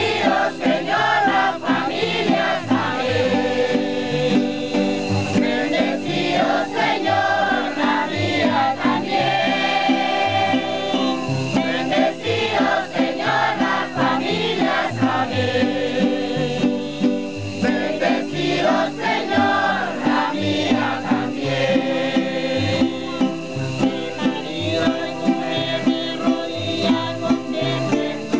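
A man singing a hymn together with a crowd of voices, accompanied by strummed acoustic guitar.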